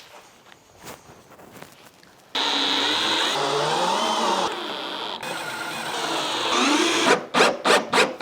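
Power drill driving self-tapping screws into the aluminum window channel: a few light clicks, then about four and a half seconds of steady motor whir whose pitch rises and falls with the trigger, ending in several short bursts.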